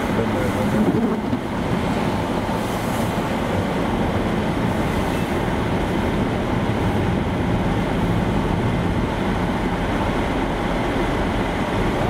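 Steady rumble of road noise heard from inside a moving vehicle on a snow-covered highway, with a semi-trailer running close alongside.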